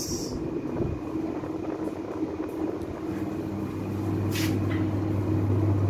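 Passenger lift travelling: a steady low hum inside the cabin, with a deeper drone that comes in and grows louder about two-thirds of the way through.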